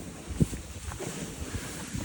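Wind buffeting the microphone outdoors, an uneven low rumble, with a single knock about half a second in.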